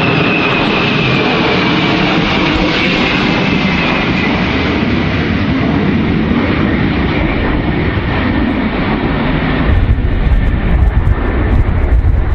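Ilyushin Il-76's four turbofan jet engines as the water bomber passes low overhead: a loud steady rush with a high whine that slowly falls in pitch. From about ten seconds in, a heavier low rumble with crackling takes over.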